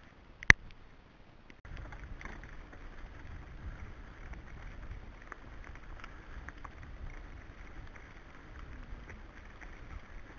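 A sharp single click about half a second in, then mountain bikes rolling down a gravel track: steady rumble of tyres on loose stones with wind on the microphone and small scattered rattles.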